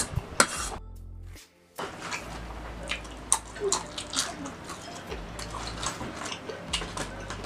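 Close-miked wet mouth sounds of eating spicy instant noodles: slurping noodles, then lip smacking and finger licking as many short wet clicks. The sound breaks off briefly about a second and a half in.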